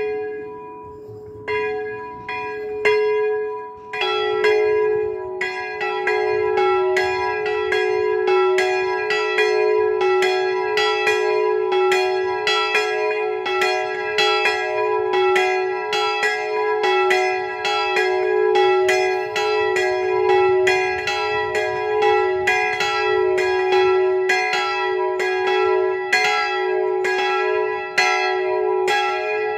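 Two swinging church bells ringing, an 80 kg bell tuned to G-sharp and a 150 kg bell tuned to E, which the uploader believes were cast by the Jan Felczyński foundry. One bell strikes alone a few times. The second, lower bell joins about four seconds in, and the two then ring on together in an uneven, overlapping pattern. The smaller bell's clapper is said to strike twice on a swing.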